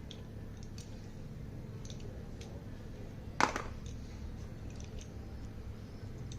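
Slate pencils being handled, with scattered faint clicks and one louder sharp crack about three and a half seconds in.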